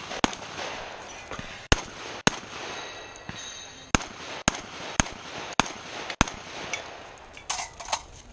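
Eight gunshots from a competitor's semi-automatic long gun: a single shot, a pair about a second and a half later, then a run of five about half a second apart. Softer clicks follow near the end.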